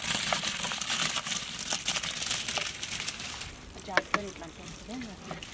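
Soaked basmati rice sliding out of a metal pan into a pot of cooking liquid: a dense, crackly hiss of wet grains and water pouring and splashing. It thins out after about three seconds.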